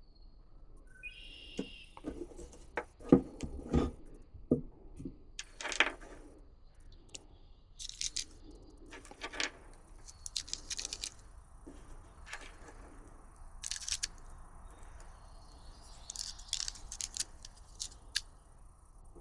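Scattered clicks and light metallic rattles, the loudest about three seconds in, over a steady high-pitched insect trill, with a short bird chirp near the start.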